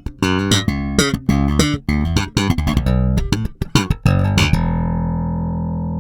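Sandberg Masterpiece five-string electric bass recorded direct, in active mode with treble and bass boosted on its two-band preamp: a fast run of plucked notes with sharp attacks, then about four and a half seconds in a last note left ringing.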